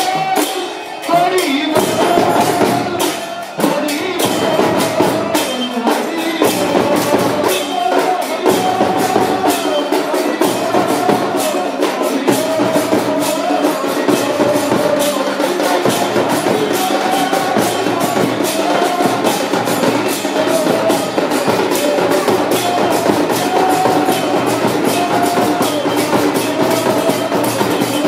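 Live kirtan: a group singing a devotional chant over steady, fast clashing of large brass hand cymbals (kartals) and beating of barrel drums.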